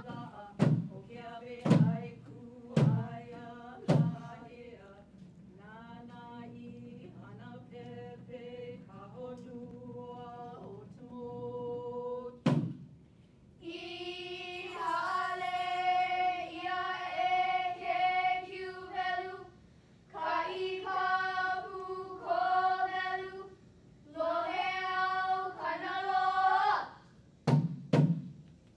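Hula chant sung by female voices, accompanied by drum strikes about once a second at the start. A single strike comes about halfway through, then stronger chanted phrases with short pauses between them, and the drum returns near the end.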